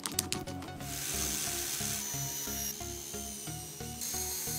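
A few clicks as the wire wheel is seated in the drill chuck. Then, about a second in, an electric drill spins a brass wire wheel against a rusty steel motorcycle wheel rim to scrub off the rust: a steady high scrubbing hiss with the drill's thin whine over it.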